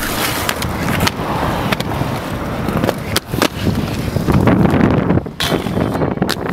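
Inline skates rolling and grinding on concrete, with several sharp clacks from wheels and frames striking the ledges and ground. Wind buffets the microphone throughout.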